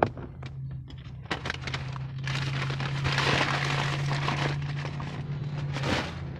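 Paper fast-food bag and wrappers being handled, rustling and crinkling: a few sharp clicks first, then a few seconds of dense crinkling that stops near the end. A steady low hum runs underneath.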